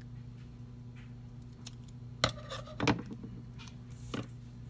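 A few sharp snips of scissors cutting sticker paper, about two seconds in and again near the end, with light paper handling and a steady low electrical hum underneath.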